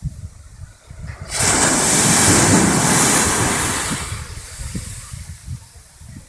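Surf at the water's edge: about a second in a wave breaks and its foaming wash hisses loudly up the sand, then fades over a few seconds. Wind buffets the microphone throughout.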